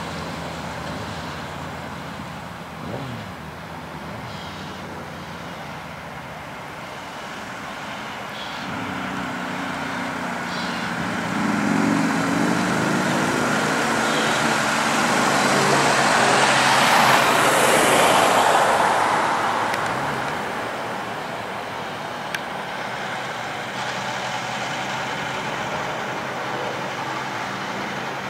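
Road traffic: a pilot vehicle's engine and tyre noise builds and fades as it drives past close by, a little past halfway, over a lower steady engine drone. A single sharp click sounds near the end.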